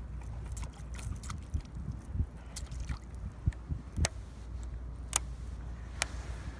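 Steady low rumble of wind on a handheld phone's microphone, with a few sharp clicks from the phone being handled.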